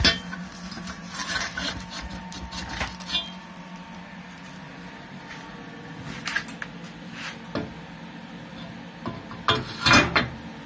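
Handling noise of a welded steel seat pan being carried and lowered onto a motorcycle frame: rubbing and scraping with scattered knocks, a sharp knock right at the start and the loudest clatter near the end as the pan is set in place. A steady low hum runs underneath.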